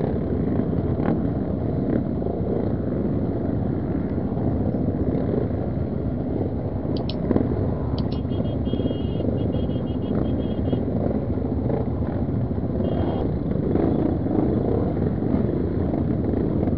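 Many dirt-bike engines idling and running at once in a tightly packed group, a steady engine din.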